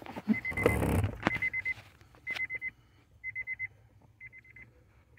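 Acura MDX's electronic warning chime: a rapid trill of high beeps repeating about once a second. In the first second or so, clicks and scraping from a screwdriver turning a screw.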